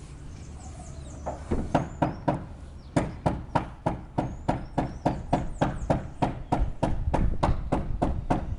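A caulking gun's trigger being pumped to squeeze out sealant: a fast, even run of sharp clacks, about three or four a second, starting a little over a second in.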